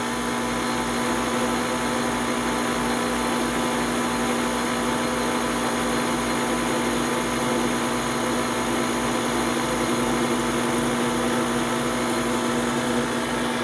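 Drill press motor running steadily with one constant hum, its small bit drilling deeper into the hole in a shotgun barrel's vent rib.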